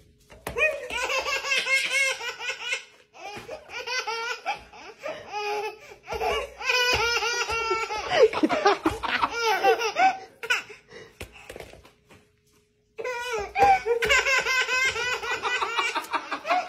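A man and a baby laughing hard in long fits of belly laughter, in three bouts: a short break about three seconds in and a silent pause around eleven seconds in.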